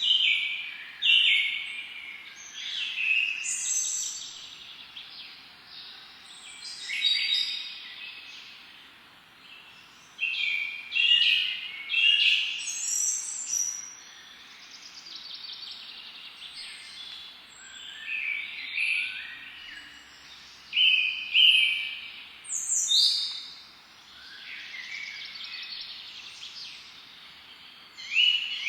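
Songbirds singing and chirping: short bright phrases of quick, high notes every second or two, over a faint background hiss.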